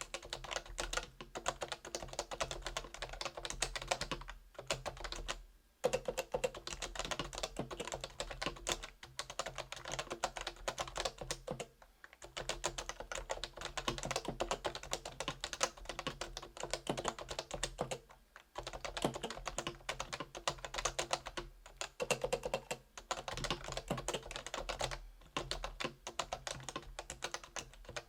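Fast continuous typing on a Realforce R2 keyboard with stock 45 g Topre electrostatic capacitive switches, stopping briefly a few times.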